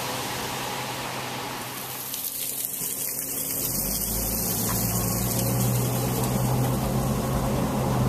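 Car driving on a wet road, heard from inside: a steady hiss of tyres and water, with a low, steady engine hum setting in about halfway through.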